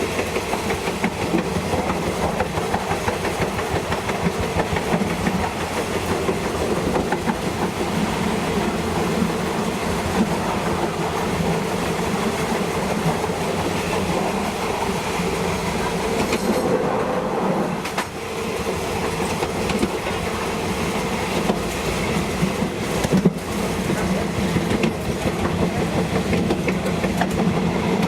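Passenger train running steadily on the State Railway of Thailand's metre-gauge line, wheels clattering over rail joints under a constant engine drone. There is a short dip in the hiss about 17 seconds in and a single sharp knock about 23 seconds in.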